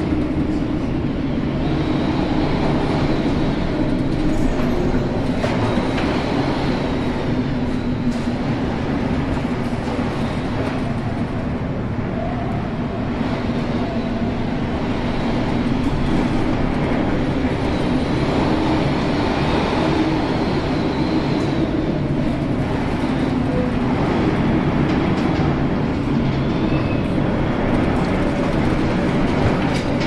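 Steady loud rumble of storm wind and heavy seas against an oil tanker, with a low steady hum underneath.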